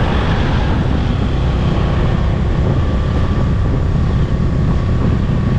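Wind buffeting the microphone on a moving motorcycle, over the steady drone of its engine.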